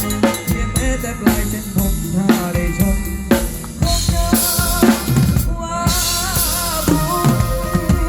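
A live band plays an instrumental passage, driven by a drum kit with a busy pattern of kick drum, snare and rimshots. About halfway through, a cymbal wash rings out, and then a melody line carries over the drums.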